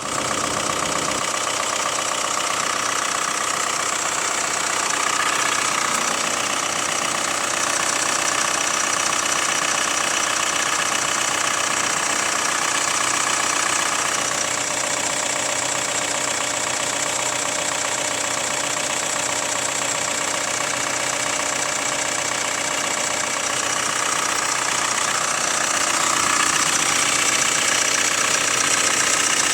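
Hyundai ix35's 2.0 CRDi diesel engine idling not fully warmed up, with a light clacking knock over the steady diesel running. The owner suspects worn hydraulic lifters or the timing chain tensioner.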